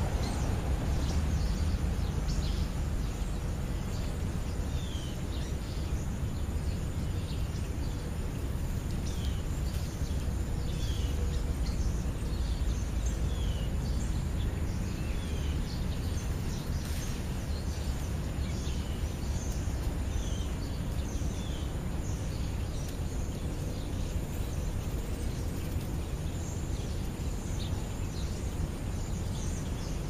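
Short, high bird chirps scattered through the first two-thirds, over a steady low outdoor rumble.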